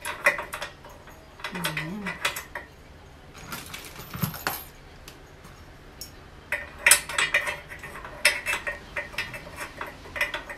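Metal parts clinking and rattling against the steel frame of an incline bench as it is put together by hand, in several short bunches of clicks with a longer, busier run in the second half.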